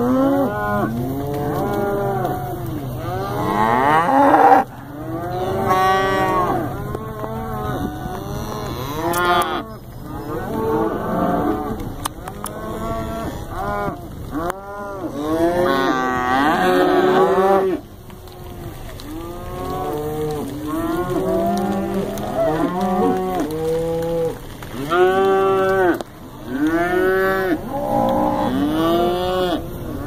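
Herd of black beef cattle mooing, many calls overlapping one another with hardly a break.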